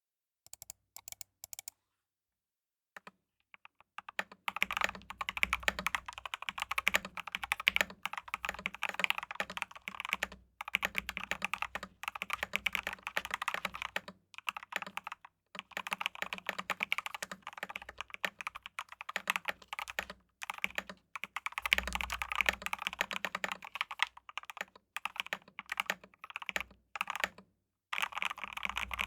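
Typing on a Tes68 mechanical keyboard with Gateron Milky Black linear switches lubed with Krytox 205g0, in a steel plate with XDA keycaps. A few single keystrokes come first, then steady fast typing from about four seconds in, broken by a few brief pauses.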